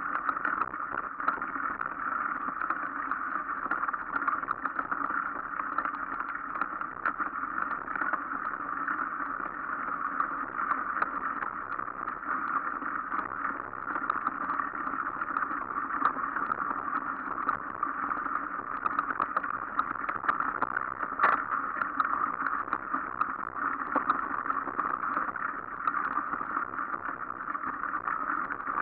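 Steady riding noise of a mountain bike rolling along a dirt and leaf-covered trail, with many small clicks and knocks from the bike over the ground and one sharper knock about 21 seconds in.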